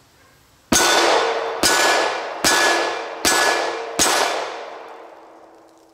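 Five .40 S&W pistol rounds striking a steel silhouette target, a little under a second apart. Each hit lands with a sharp clang and the plate rings on with a steady tone, fading away after the last hit.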